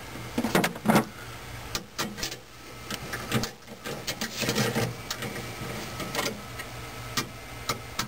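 Irregular metallic clicks and light knocks of hand tools driving screws in, with a quicker run of clicks in the middle. The screws fasten an ignition coil bracket to the frame, turned with a small driver and then a socket ratchet.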